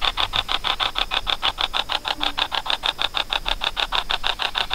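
Spirit box app scanning through a phone's speaker: an even, rapid chatter of short static pulses, about ten a second.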